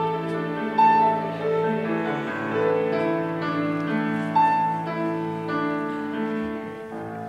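Grand piano played with a string orchestra: piano notes ring out over sustained string chords, growing softer near the end.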